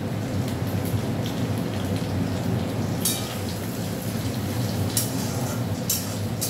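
Onions, garlic and nigella seeds sizzling steadily in hot oil in a steel kadai, stirred with a metal spatula. The spatula scrapes against the pan about three seconds in and twice near the end.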